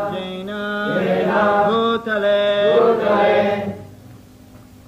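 A voice chanting Vedic mantras for a wedding's fire sacrifice, holding steady notes and stepping between pitches. It dies away a little before the end.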